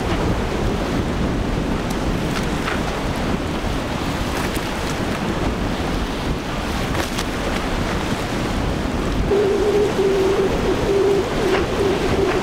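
Wind buffeting the microphone over the wash and rushing water of boats planing at speed. From about nine seconds in, a steady outboard motor drone joins in as a small skiff runs past.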